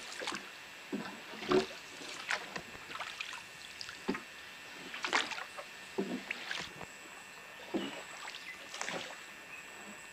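Rowboat oars dipping into and pulling through calm river water, making short irregular splashes about once a second.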